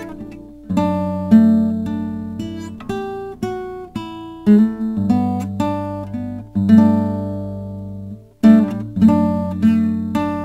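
Original film-score music on acoustic guitar: a slow piece of plucked chords and single notes over low bass notes, each note starting sharply and ringing out as it fades.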